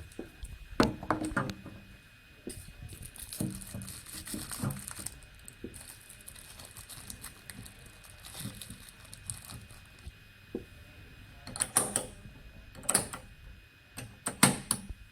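Scattered clicks, taps and short rustles from handling a solder paste thawing machine, its covers and keypad, with a few louder knocks near the end and a faint steady high tone throughout.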